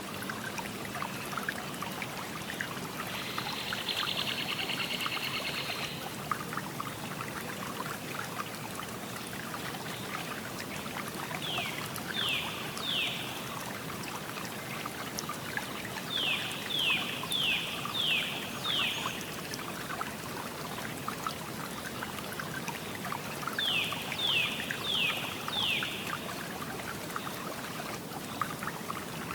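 River water flowing and trickling steadily, with many small splashes. A bird calls three times in short runs of quick descending notes, and a brief buzzy trill sounds a few seconds in.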